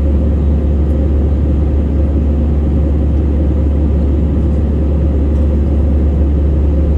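Steady low drone inside the cabin of an Airbus A320-family airliner in flight, the engines and airflow making a constant deep rumble.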